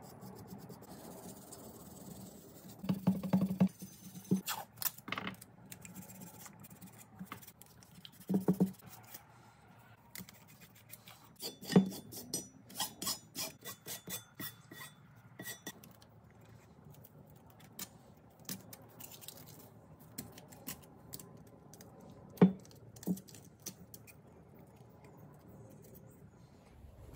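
Masking tape being pulled off the roll, torn and rubbed down onto the parts of a Dana 30 steering knuckle: scattered short scratchy rips, rubbing and light clicks with quiet gaps between them.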